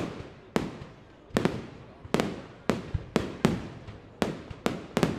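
Fireworks display: shells bursting in a quick, irregular series of sharp bangs, about two a second, each trailing off in a rolling echo.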